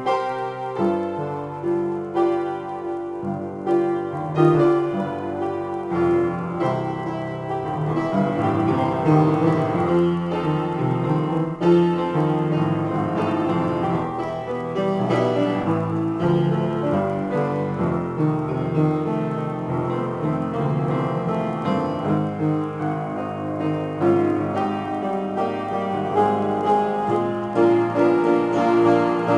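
Piano being played in a free improvisation: a continuous run of notes and chords, mostly in the low and middle range, without pause.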